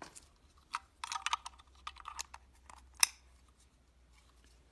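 Scattered light clicks and taps of hard plastic being handled: a tablet's power brick and its plastic packaging tray. The sharpest click comes about three seconds in.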